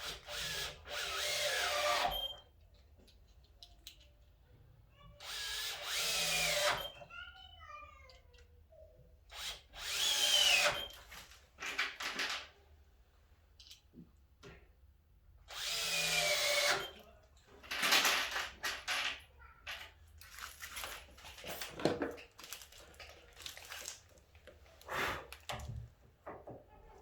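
Drill-driver with a Phillips bit driving screws into door hinges: four short runs of a couple of seconds each, the motor whine rising and falling in pitch, followed by a series of sharp clicks and knocks.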